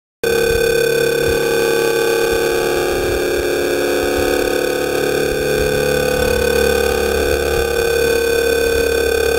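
Brushless electric motor and propeller of a scratch-built RC plane running at steady throttle: a loud, steady whine that starts suddenly about a quarter second in.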